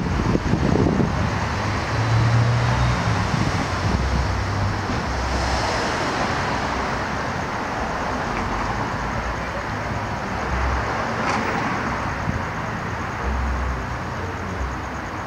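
Road traffic noise: a steady hiss of passing cars, with a low rumble a couple of seconds in.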